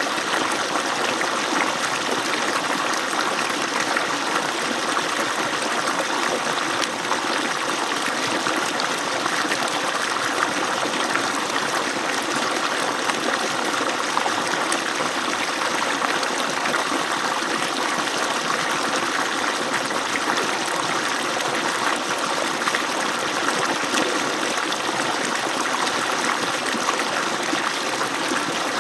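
Water pouring steadily from an agricultural pump's outlet pipe, a constant splashing rush with no breaks.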